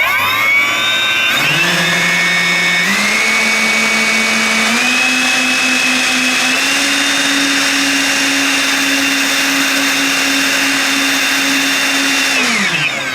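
80 mm Dr. Mad Thrust electric ducted fans of an RC Boeing 737-300 spooling up with a rising whine, stepping up in pitch several times over the first seven seconds, holding a steady high whine, then spooling down near the end. This is a power run-up on a watt-meter test, with no lag or abnormal draw.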